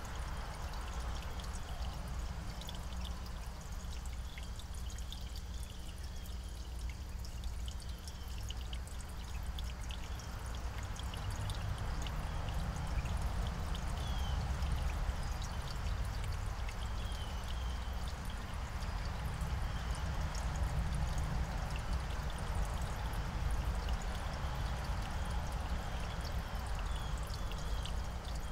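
Outdoor ambience: a steady rushing noise with a deep low rumble, a little louder in the second half, and short high bird chirps now and then.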